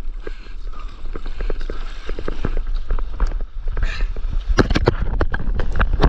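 Wind rumbling on the microphone of a board-mounted camera, with irregular knocks and taps. About four and a half seconds in, the knocks get louder and come thick and fast as a hand handles the camera.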